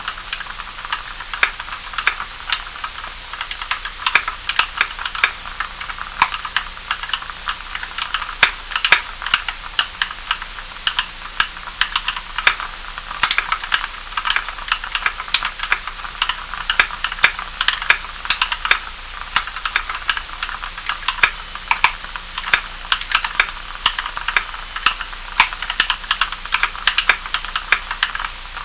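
Typing on a custom EO87 tenkeyless mechanical keyboard with Kailh Cream switches (75 g springs, switch films, Krytox 105 oil lube) and Equalz stabilizers greased with Permatex. Keystrokes come in a steady, irregular run of clacks over a faint steady hiss.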